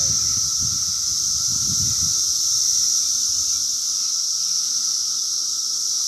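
Chorus of periodical cicadas: a loud, steady, high-pitched drone without a break, with a fainter lower tone beneath it. A low rumble swells and fades in the first two seconds.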